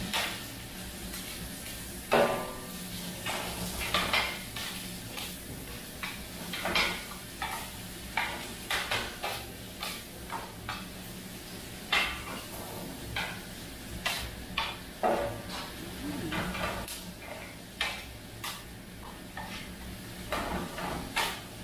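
Kottu roti being chopped and mixed on a flat-top griddle: two metal blades clank against the steel plate in irregular runs of strikes over a steady sizzle.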